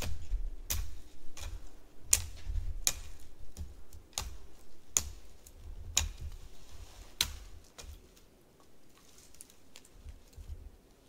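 Small dead branches and twigs snapped off a fallen tree by hand: a string of sharp, irregular snaps, the last loud one about seven seconds in, over a low rumble.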